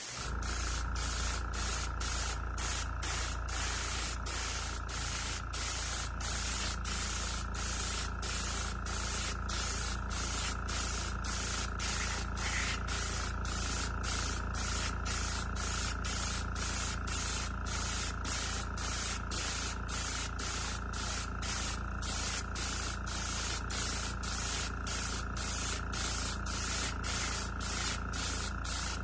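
Airbrush spraying chrome lacquer: a steady hiss of air and paint that pulses about twice a second, over the steady hum of a small air compressor.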